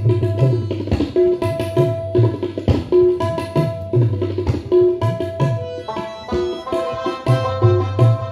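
Instrumental passage of Pashto folk music: tabla playing a steady rhythm with deep bass strokes under a held melody on an electronic keyboard. About six seconds in, the melody climbs higher.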